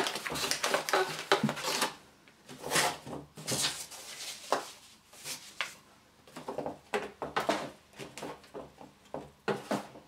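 Rustling and crinkling from unpacking a motherboard box: paper inserts and cardboard handled, then the motherboard's plastic anti-static bag crinkling as it is lifted out, in irregular bursts.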